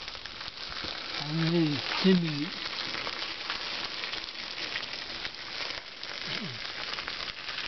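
Steady rushing hiss of wind and road noise on the microphone as a golf cart rolls along, with no engine note, growing louder about a second in. Two brief low voice-like sounds come about a second and two seconds in.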